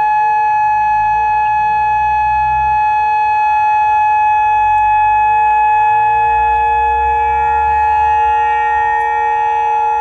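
Whelen WPS-2810 electronic outdoor warning siren sounding the steady alert signal: a loud, unwavering tone of several pitches held together, with no rise or fall.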